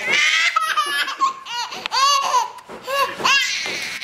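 A baby's laughing fit: a string of high-pitched laughs in about five bursts with short gaps between.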